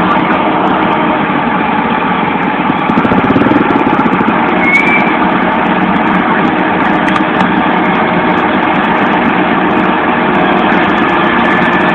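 Hydraulic excavator's diesel engine running steadily under load as the machine climbs onto a flatbed truck.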